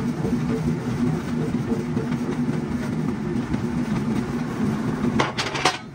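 An engine running steadily, with a quick run of about four sharp knocks near the end.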